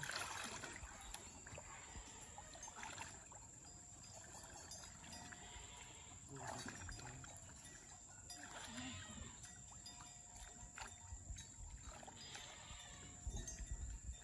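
Muddy pond water sloshing and splashing faintly and unevenly as people wade chest-deep and grope for fish by hand.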